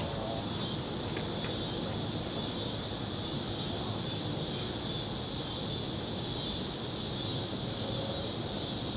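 Steady, high-pitched chorus of insects such as crickets, running unbroken over a low outdoor background hum.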